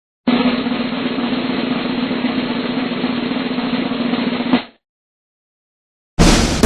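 Snare drum roll, steady for about four and a half seconds and swelling into a sharper final hit before it cuts off. After a short silence, brass music starts near the end.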